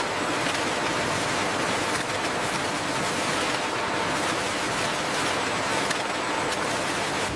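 Steady rushing hiss of factory machinery on an automated bag-filling and palletizing line, with a faint high steady tone underneath.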